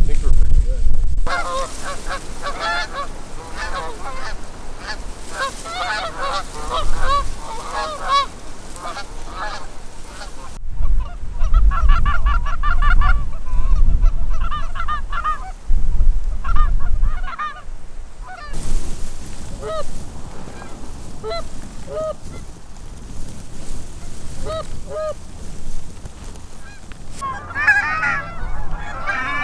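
Canada geese honking, many calls overlapping from flocks in flight, with wind rumbling on the microphone in places. The sound changes abruptly a few times, and the honking is densest near the end.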